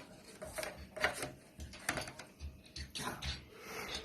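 Hard plastic pieces of a Smashers toy egg clicking and clattering as they are handled and pushed together, in irregular knocks and rattles.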